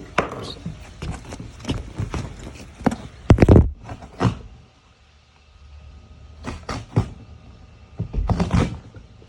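A box and its contents being handled and opened: a series of knocks, clunks and scrapes, the loudest about three and a half seconds in, with a short lull about five seconds in.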